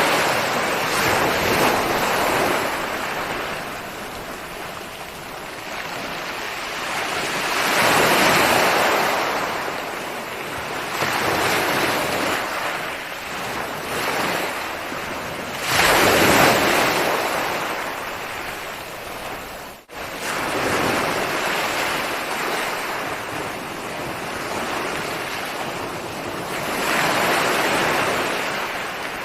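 Ocean waves breaking and washing back on a shore, swelling about every eight seconds, with one sharper break about sixteen seconds in. The sound cuts out for an instant about twenty seconds in.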